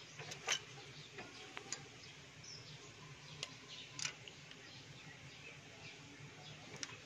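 Faint clicks of steel hand tools on an engine's rocker-arm valve adjuster, from a ring wrench and screwdriver on the adjusting screw and a feeler gauge under the rocker, while the valve clearance is being set. There are a few sharp clicks in the first four seconds over a low steady hiss.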